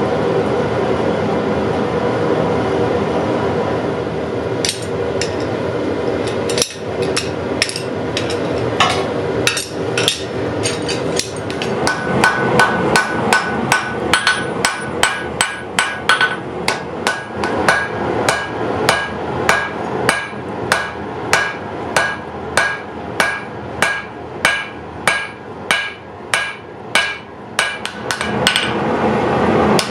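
Hammer blows on steel on an anvil while forging a damascus knife blade. A steady rushing noise at first, then strikes start about five seconds in and settle into a regular beat of about two a second, each with a short metallic ring.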